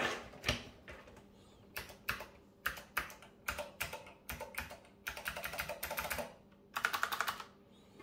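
Typing on a vintage Leading Edge keyboard with clicky Alps SKCM Blue switches: scattered keystrokes, then fast runs of presses in the second half.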